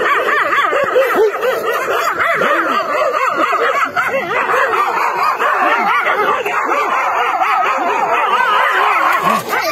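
Several dogs barking and yelping at once, without a break, their calls overlapping.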